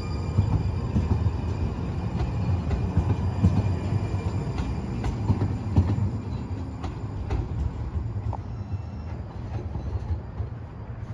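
Siemens S70 streetcar passing on the rails: a low rumble of wheels on track with a series of sharp clicks through the first seven seconds, fading near the end as it moves off.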